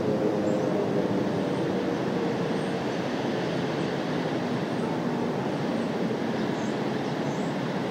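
Federal Signal Thunderbolt outdoor warning siren winding down: its tone sinks and fades over the first couple of seconds, leaving a steady rushing noise while the rotating horn keeps turning.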